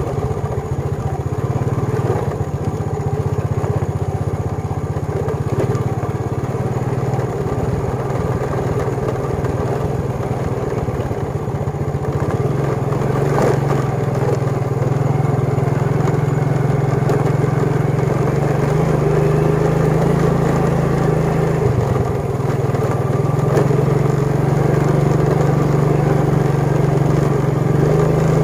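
Motorbike engine running steadily as the bike is ridden along a track, its note dipping briefly about three-quarters of the way through.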